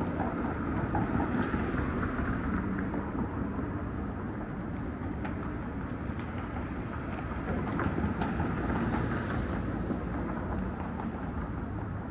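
Downtown street ambience: a steady rumble of traffic, with a few faint clicks.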